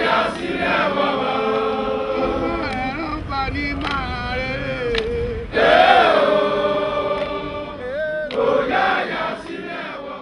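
A crowd of men singing and chanting together in many overlapping voices, holding long notes, with a sudden louder swell about five and a half seconds in.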